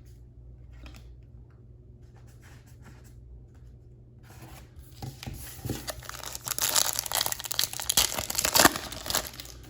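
A baseball card pack's foil wrapper being torn open and crinkled. A few faint handling ticks come first, then from about five seconds in a crackling tear that grows louder towards the end.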